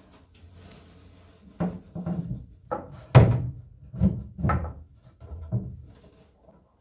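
A painted boat hatch panel knocking and thudding several times as it is handled and set into its opening in the cabin sole for a test fit, the loudest thud a little past three seconds in.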